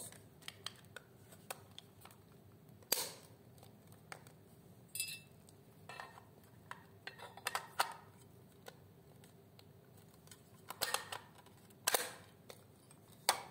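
A small plastic controller box being closed and fitted by hand: scattered light clicks and taps of plastic parts against each other and the mounting plate, with a few louder knocks spread through.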